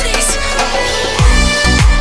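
Electronic dance-style background music: sustained synth tones fade out in the first half, then a steady kick-drum beat comes in a little past halfway at about two beats a second.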